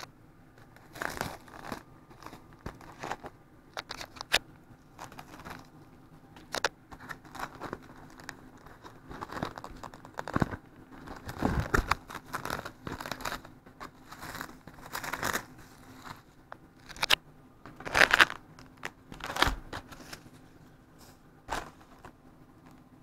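Plastic cling film on a bento box being crinkled and pulled off by hand, with the small condiment packets under it rustling, in irregular crackling bursts that are loudest about halfway through and again around three-quarters of the way in.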